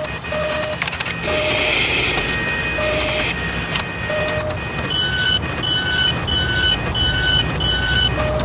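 Machine sound effects for an animated outro: steady mechanical whirring and clatter, with a few short low beeps in the first half and then a regular run of short high beeps, about two a second, from about five seconds in.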